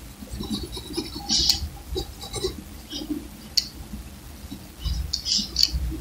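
Graphite pencil scratching across paper in short, irregular strokes, with a few sharper clicks among them.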